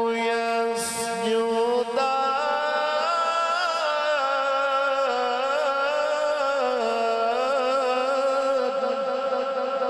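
A man reciting the Quran in the melodic tilawat style, amplified through a microphone. He draws out long held notes that waver in pitch and step higher about two seconds in.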